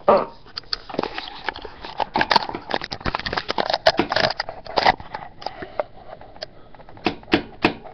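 Handling noise from a webcam being moved about by hand close to the microphone: a dense run of irregular scrapes, taps and rustles, thinning out after about five seconds, with a few sharp clicks near the end.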